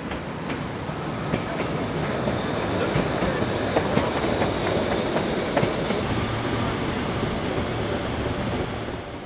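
Narrow-gauge steam train carriages rolling past close by, their wheels clicking over rail joints with a faint squeal of wheel on rail. The rolling noise builds toward the middle and drops away at the very end.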